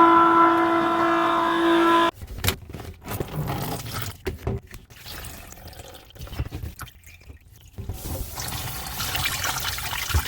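A few seconds of background music that cuts off, then scattered knocks and clatter of work on a clogged kitchen sink drain, and near the end water running and pouring as the drain lets go.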